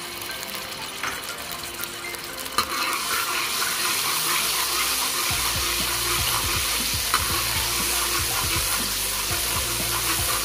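Garlic-ginger paste sizzling in hot oil in a steel pot while it is stirred with a spoon; the sizzling grows louder about two and a half seconds in.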